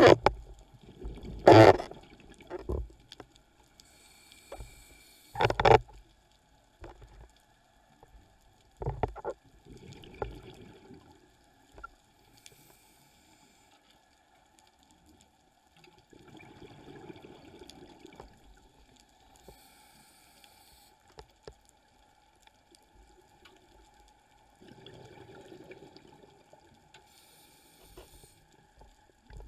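Scuba diver breathing through a regulator, heard underwater: short high hisses on each inhalation alternating with longer muffled bubbling rumbles on each exhalation, with a few louder bubble bursts in the first ten seconds.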